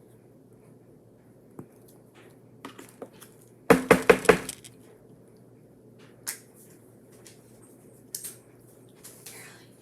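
Painting supplies handled on a tabletop: scattered light clicks and taps, with a quick run of five or six sharp knocks about four seconds in, like a brush rapped against a paint pot.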